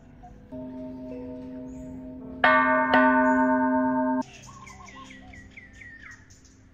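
Bell chimes: two strikes about half a second apart ring out over held tones and stop abruptly, followed by a run of quick, repeated falling bird chirps.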